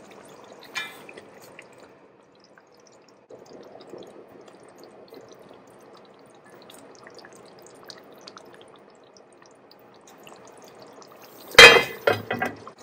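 A pot faintly simmering, then near the end a loud clang of metal cookware ringing out, followed by a few smaller knocks.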